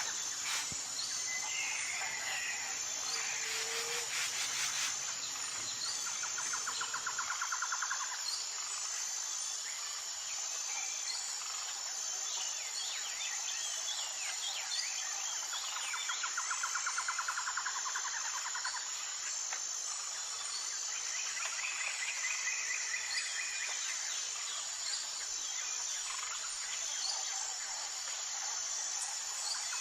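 Birds chirping, with several rapid trills of a couple of seconds each, over a steady high-pitched pulsing drone. A low rumble underneath stops about seven seconds in.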